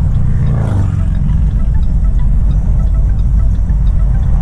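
Steady low rumble inside a semi-truck's cab at highway speed: diesel engine and road noise droning evenly.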